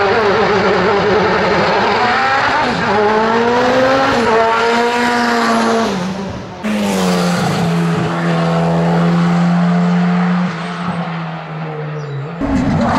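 Hillclimb race car engines at full throttle: the note climbs and drops back at gear changes, then after a sudden change a car holds a steady high note that falls and fades as it passes.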